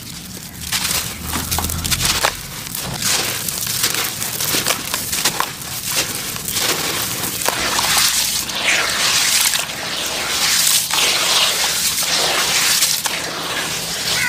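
Hands crumbling a dry sand-cement and gravel mix, the grains falling with many small crackles. About halfway through, lumps are crumbled into water in a basin, and the sound turns to dense splashing and sloshing.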